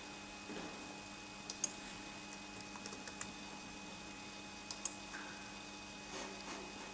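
Faint clicks from a computer's mouse and keyboard as the software is operated: three pairs of quick, sharp clicks spaced about a second and a half apart, over a steady low electrical hum.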